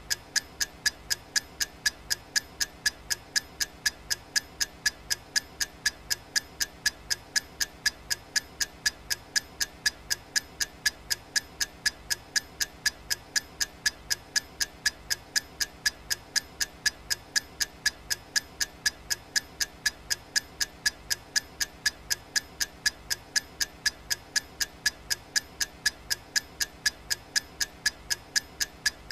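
Clock-ticking sound effect: even, sharp ticks at about two a second, keeping time for a countdown timer.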